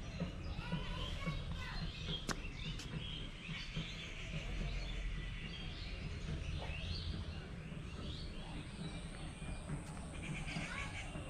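Outdoor park ambience: small birds chirping repeatedly over a steady low rumble.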